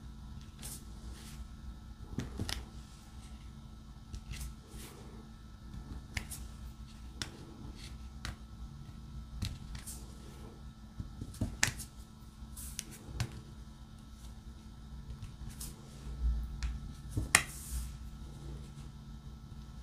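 Irregular small clicks and taps of a diamond painting pen multi-placing resin drills onto the canvas, roughly one every second or so.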